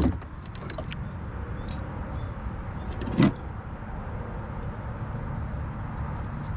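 Wind rumbling and buffeting on the microphone, with one brief knock about three seconds in.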